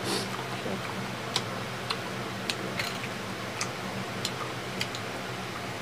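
Small sharp clicks and cracks at irregular intervals, about one or two a second, as a balut's eggshell is peeled by hand, over a faint steady low hum.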